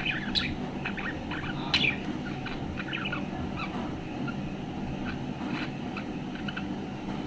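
Budgerigar chirping and warbling in short, irregular chirps, the cheerful chatter of a contented bird. A steady low rumble runs underneath.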